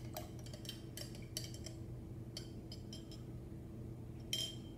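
A metal spoon stirring sugar into water in a small glass jar, clinking quickly against the glass. The clinks thin out after about two seconds, with one louder clink near the end.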